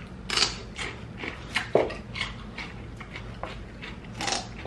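Close-up eating sounds: chewing and wet lip-smacking on sauced chicken wings, a run of irregular short clicks and smacks, the loudest about half a second in and just under two seconds in.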